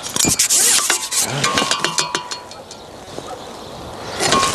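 Carbon fishing pole being handled and slid back: rubbing hiss from the sections, light clicks and knocks, and a short squeak about a second and a half in.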